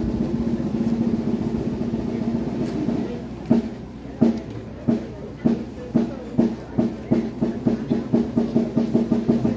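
A procession band striking up: a held chord from the band, then drum strokes come in about three and a half seconds in and speed up towards a roll.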